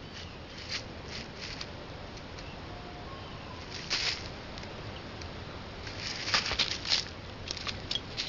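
Dry leaf litter rustling in short, scattered bursts as a cat paws and pounces at a lizard, with one burst about four seconds in and a busier flurry near the end.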